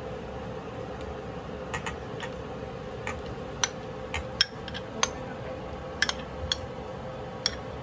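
Metal spoon clinking against a glass bowl and a steel mixing bowl while scooping pineapple chunks out: about ten short, sharp clinks at uneven intervals, the loudest a little past four seconds in.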